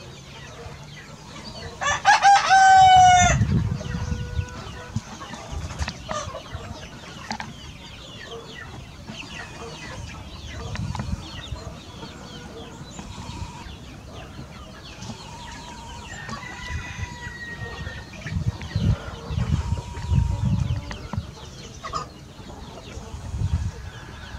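A rooster crows once, loud, about two seconds in, and hens cluck faintly at intervals afterwards.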